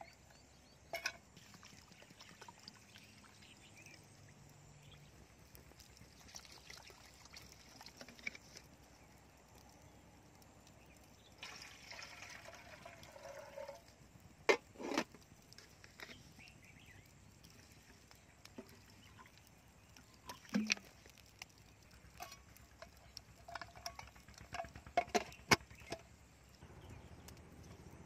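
Water poured into a metal field cooking pot (mess tin) to cook rice, for about two seconds near the middle. A few sharp metal clinks and knocks of the pot follow, with more clinks near the end.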